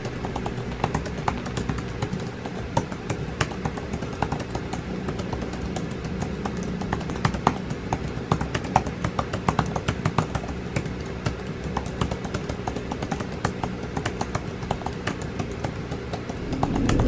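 Fingers typing on the keys of an Apple Magic Keyboard for iPad: a quick, irregular run of light key clicks, several a second.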